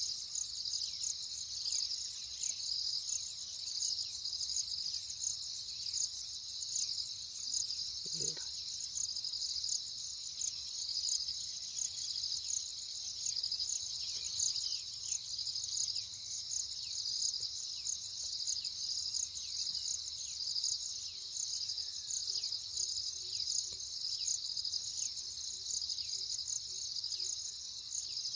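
Steady, high-pitched pulsing insect chorus, with faint short chirps underneath and one brief low sound about eight seconds in.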